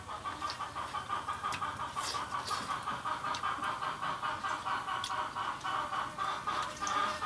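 A steady, rapidly pulsing animal call, several even pulses a second, with a few faint clicks over it.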